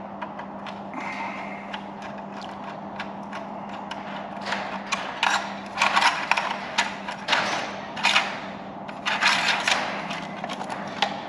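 Metal clips being prised off the exhaust pipe heat shields of a Bristol Hercules radial aero engine with a thin hand tool: scattered clicks, scrapes and metal-on-metal clinks, coming thicker and louder in the second half, over a steady low hum.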